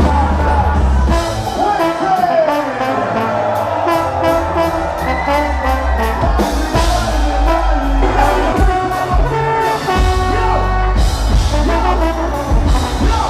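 Live band playing loud, upbeat ska-style music, with trombone among the instruments and a heavy bass.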